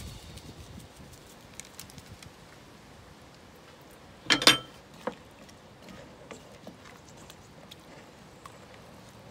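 A wooden spoon knocks against a stainless steel stockpot in a short clatter about four seconds in, with a smaller knock just after, amid faint scattered ticks.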